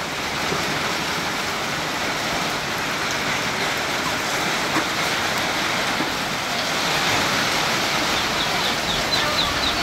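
Heavy rain pouring steadily.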